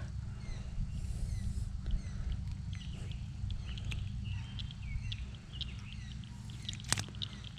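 Outdoor pond-side ambience: faint short chirping animal calls and scattered small clicks over a low rumble, with one sharp click about seven seconds in.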